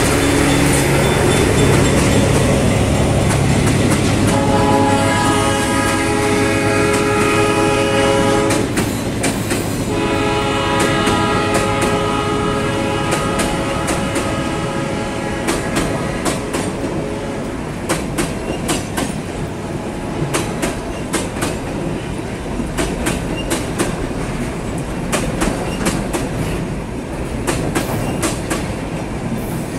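GE BB36-7 diesel-electric freight locomotives passing close by with their engines running. A few seconds in, the locomotive horn sounds two long chord blasts of about four seconds each, a second or so apart. After that a string of empty freight wagons rolls past with a steady clickety-clack of wheels over the rail joints.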